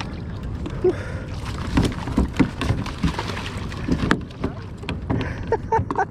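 Wind rumbling on the microphone, with irregular knocks and clicks of gear handled against a plastic sit-on kayak while a fish is landed. A few short voice sounds come near the end.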